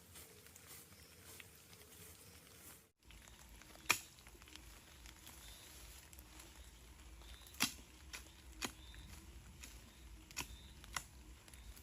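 Scattered sharp taps over faint low background noise. Most fall in the second half, and the loudest comes about four seconds in.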